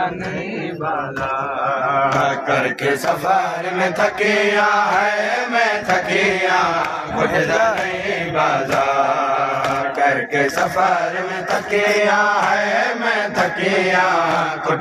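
Men of an anjuman chanting a Saraiki noha, a Shia mourning lament, in a melodic sung recitation, with repeated sharp strikes throughout.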